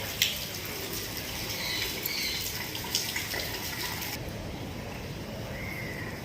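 Steady rush of flowing floodwater, with a sharp knock just after the start and another about three seconds in.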